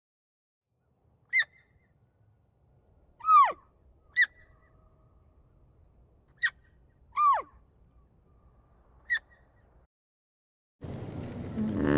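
A series of six animal calls: four brief sharp calls alternating with two longer calls that drop steeply in pitch, with quiet between them. About a second before the end, a different, noisier sound cuts in.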